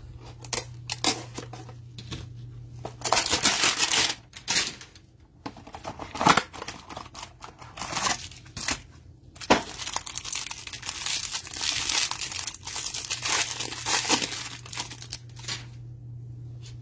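A trading-card hanger box being torn open by hand: irregular bursts of tearing and crinkling packaging as the cards are pulled out. A faint steady hum sits underneath.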